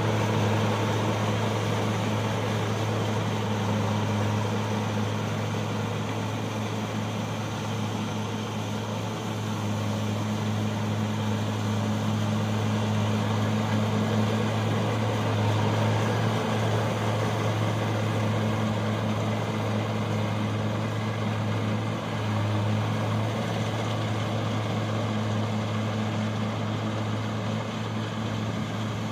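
Kubota rice combine harvester running steadily: an even engine hum under a wide mechanical noise, with no break.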